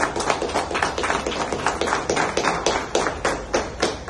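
A small group of people clapping their hands in time, about four claps a second.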